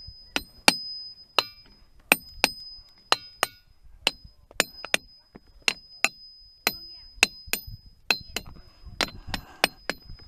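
A hammer striking the ringing rocks, diabase boulders, in a quick uneven run of about two dozen blows played as a song. Each blow gives a sharp clink with a bell-like ring, and the pitch differs from rock to rock.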